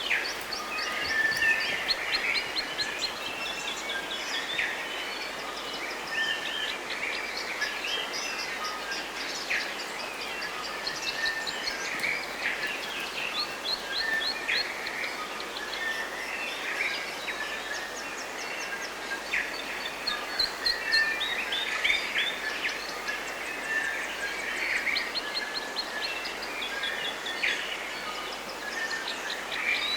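A chorus of songbirds chirping and trilling without pause over a steady background hiss.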